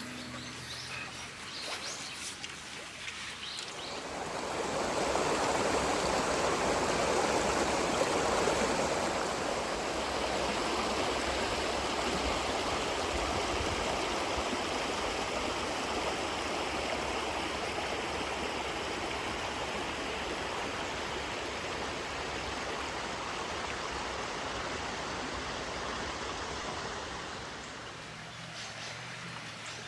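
River water rushing steadily, swelling up about four seconds in and fading away near the end.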